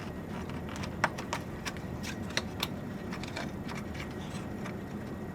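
Light, scattered clicks and ticks as a data cable is pressed and slid into the cable routing guides of a PowerEdge R6725 server chassis, over a steady faint hiss.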